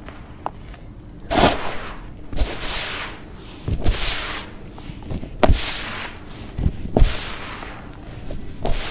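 Dry sand-cement powder scooped up by hand in a tub and let fall, about six times, starting about a second in. Each pour is a hiss with a soft thud as the lumps land.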